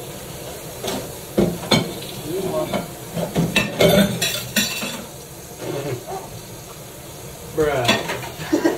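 Kitchen clatter: utensils clinking and scraping against pans and dishes, with a string of sharp clicks, over a steady frying sizzle.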